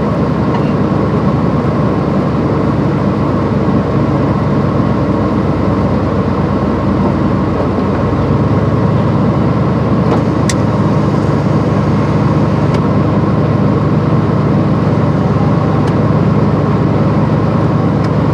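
Truck engine running, heard from inside the cab as the truck rolls slowly forward; the engine note gets a little louder about eight seconds in.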